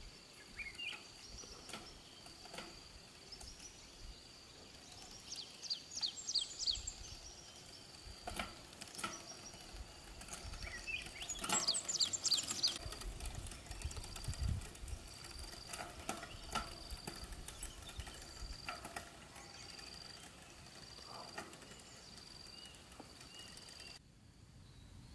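Faint rural roadside ambience: a steady high insect drone that breaks into regular pulses about once a second in the second half, with two quick runs of bird chirps and scattered clicks. Around the middle a bicycle rolls past close by, adding a low rumble.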